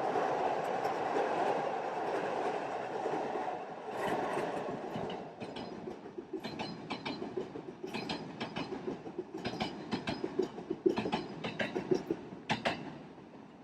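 Train running on rails: a steady running noise, then from about five seconds in a run of clicks as the wheels cross rail joints, fading away near the end.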